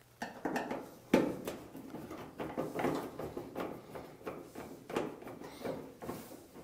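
Screwdriver backing a screw out of a dryer's sheet-metal cabinet corner: irregular small clicks and scrapes of the tool in the screw and against the metal, with one sharper click about a second in.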